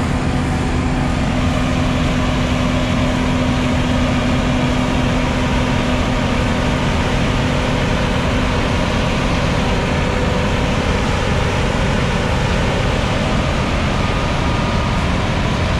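Claas Tucano combine harvester running close by as it harvests barley: a loud, steady drone of engine and threshing machinery.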